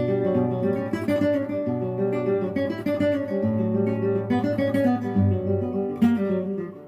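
Music with acoustic guitar, the notes plucked and strummed, starting abruptly just after a brief silence.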